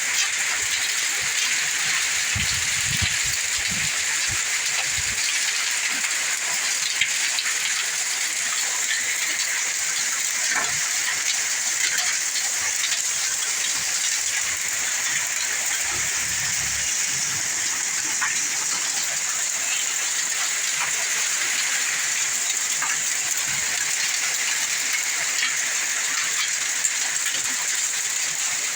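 Heavy hail and rain pelting down in strong wind: a steady loud hiss peppered with many sharp ticks of hailstones striking, with a few low wind rumbles.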